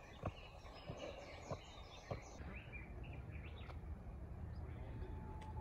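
Footsteps on stone steps, a sharp step about every half second to second, with small birds chirping. After about two and a half seconds the steps stop, and birds keep chirping over a low rumble.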